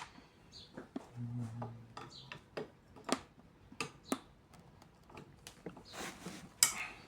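Irregular small metal clicks and taps from parts and tools being handled while a fan motor is taken apart for its bearing, with a brief hiss near the end.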